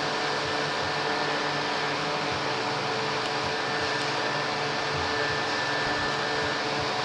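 Steady machine whir: an even rushing noise with a constant hum in it, holding unchanged throughout.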